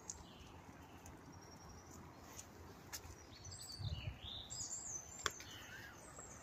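A small songbird singing in midwinter as if it were spring: thin, high whistled phrases with quick rising and falling glides, fullest around the middle. A few faint sharp clicks and soft low thumps.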